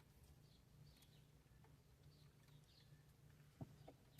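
Near silence: faint room tone with a low steady hum and two soft clicks near the end.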